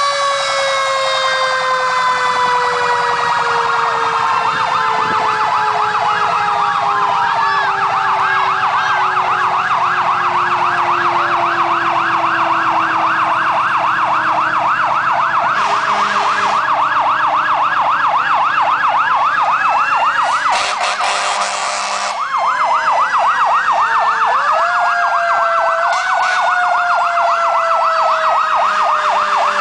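Several fire engine sirens sounding together as the trucks pass: a fast yelp repeating several times a second over long wails that slowly fall in pitch. Fresh wails rise again about three-quarters of the way through.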